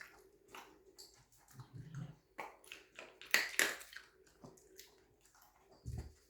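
A dog eating food: irregular chewing with short clicks, loudest about three and a half seconds in.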